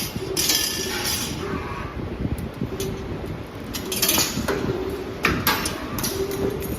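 Wire-forming machine running: irregular sharp metallic clinks and rattles over a steady low rumble, with a short mechanical tone coming back every second or so.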